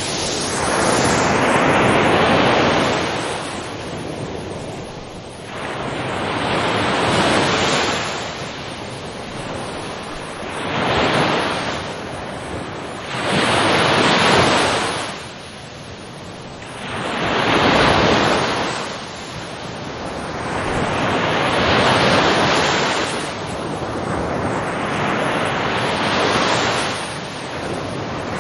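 Ocean waves breaking on the shore, one surge of surf every three to four seconds, each swelling and then fading away.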